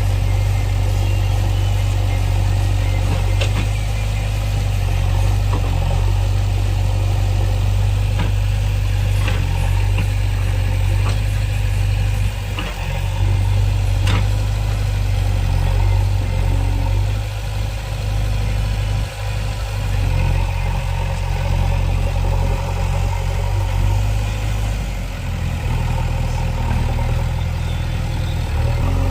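JCB backhoe loader's diesel engine running steadily, its note shifting now and then as the machine works, with a few faint clicks.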